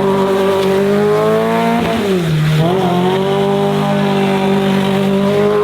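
Car engine running at high revs, its pitch dipping sharply about two seconds in and climbing straight back, as when the throttle is lifted and reapplied.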